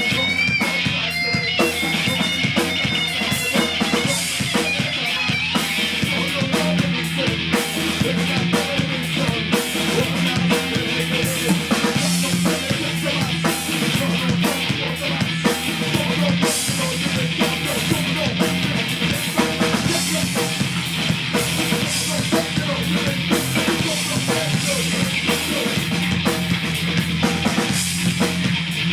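Alternative rock band playing an instrumental passage: a drum kit driving a fast, steady beat under electric bass and electric guitar.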